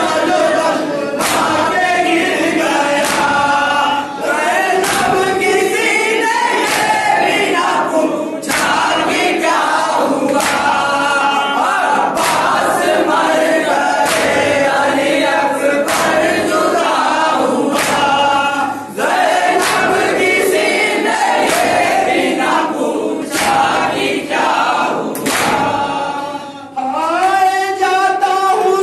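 Group of men chanting a nauha (Shia lament) together, with sharp chest-beating slaps of matam about once a second. Near the end a lead reciter's voice over a microphone takes over the chant.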